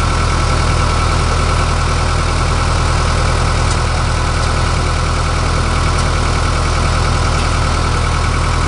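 Skid-steer loader's engine running steadily at an even speed.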